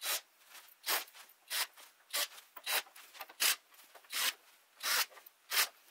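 Hand screwdriver backing screws out of a TV's plastic back panel: short rasping strokes, about one and a half a second.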